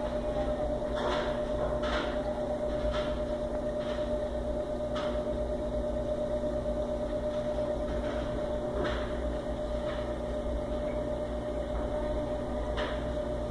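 Aquarium pump humming steadily, a high steady tone over a low rumble, with faint soft clicks every few seconds.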